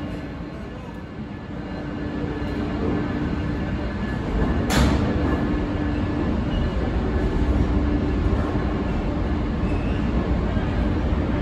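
An Amtrak passenger train, Siemens ALC-42 Charger locomotive trailing, rolling out of an underground station platform: a low rumble with a faint steady hum that grows louder. One sharp, loud noise about five seconds in.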